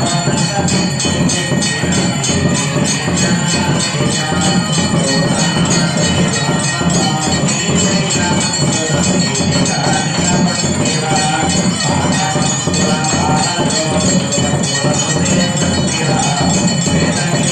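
Temple bells ringing rapidly and without pause, mixed with music.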